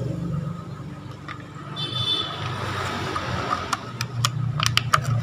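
Sharp clicks and taps of a charger adapter and cable being handled over a steady low hum, with a brief high chirp about two seconds in.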